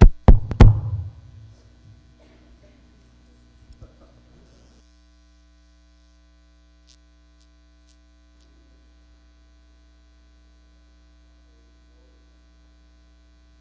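A drum struck three times in quick succession right at the start, sharp and loud, ringing out briefly. Then a steady mains hum through the sound system, with little else.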